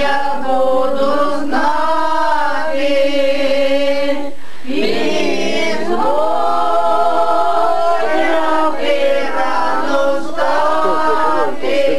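A group of voices singing a song together without accompaniment, in long held notes, with a short break between phrases about four seconds in.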